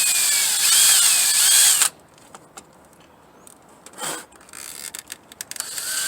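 Power drill run in a burst of about two seconds against a battery terminal to clean it, its pitch dipping and rising under load. It stops, and a few light clicks follow near the end.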